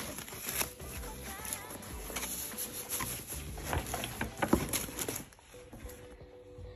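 Thin plastic wrapping and packing paper crinkling and rustling as they are handled in a cardboard box, in quick irregular crackles that die down about five seconds in.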